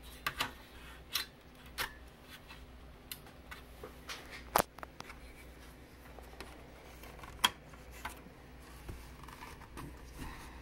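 Scattered clicks and taps of a Macintosh Performa 475 logic board being pressed and slid into its plastic case, the board not seating easily. Two sharper clicks stand out near the middle.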